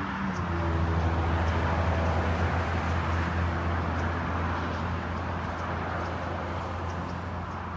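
An engine running steadily with a low hum, slowly fading, over a constant rushing noise.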